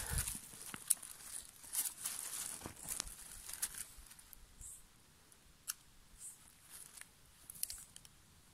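Dry leaf litter and twigs crackling and rustling as a hand brushes them aside around a porcino mushroom, with sharp little snaps and clicks. The crackling is busy for the first few seconds, then thins to scattered faint clicks.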